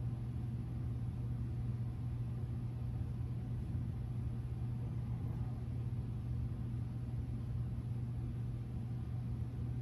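Steady low hum with a faint even hiss above it, the running noise of the ceiling fans and ventilation in a large metal building.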